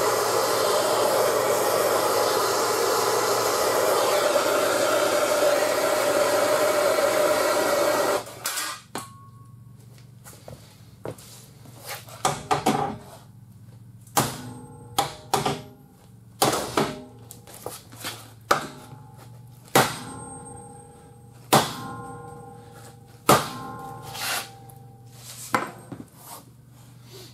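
Bernzomatic TS8000KC hand torch burning with a steady hiss for about eight seconds, heating the frame rail, then shut off. After that, a series of sharp metallic knocks and clanks with a short ringing after each, about one every second or two, from work on the frame and straightener.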